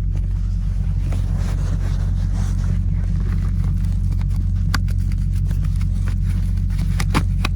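A diesel engine of heavy equipment idling steadily, with a deep, even hum. A few sharp clicks and knocks cut in about five seconds in and twice near the end.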